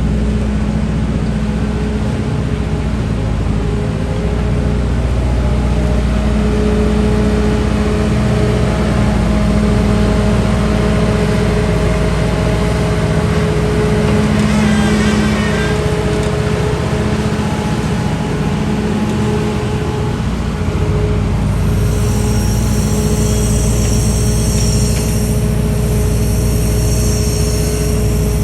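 Liebherr A934C wheeled excavator's diesel engine running steadily, with steady whining tones above the engine note. About three-quarters of the way through, several high-pitched squealing tones join in and carry on.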